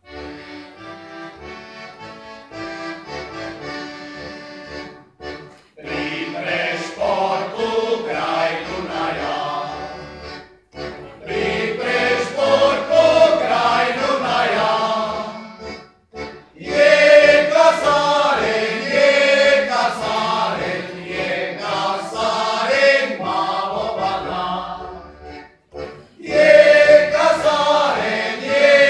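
Men's folk choir singing in harmony to accordion accompaniment. The accordion plays alone and quieter for the first few seconds, then the voices come in strongly about six seconds in. The song moves in phrases with short breaks between them.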